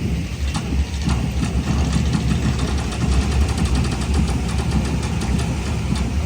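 Low, steady rumble with faint rapid ticking over it, from the sound-and-light show's soundtrack playing over outdoor loudspeakers.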